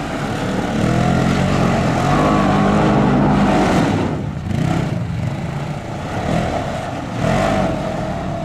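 Polaris Ranger XP side-by-side's engine revving up and down as the vehicle is driven hard on dirt. The engine is loudest through the middle, eases off, then surges again near the end.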